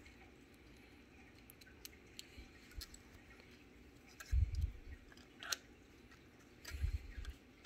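Small screwdriver driving tiny screws into a plastic gauge housing: faint scattered clicks and ticks, with two dull low thumps from the housing being handled about four and seven seconds in.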